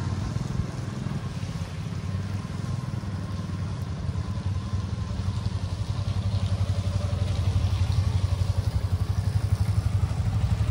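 Small motor scooter's engine running close by with a fast low pulse, growing louder over the second half as it comes alongside.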